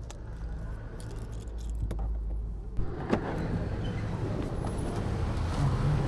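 Clicks of a car door being unlatched, then the door swung open. Partway through, the noise of passing street traffic rises sharply as the cabin opens to the road.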